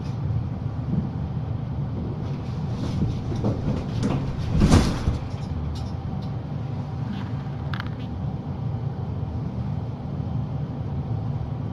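Steady low hum, with one brief louder clatter a little under halfway through.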